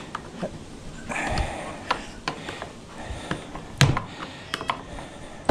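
Light metal clicks and taps of a small wrench being fitted to and turned on the bolts of an aluminum radiator's plastic end tank. There is a short scrape about a second in and a sharper knock just before four seconds.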